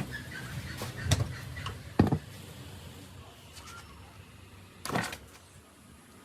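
A few scattered knocks and clunks, the sharpest about two seconds in and another near five seconds, over a low hum that fades away.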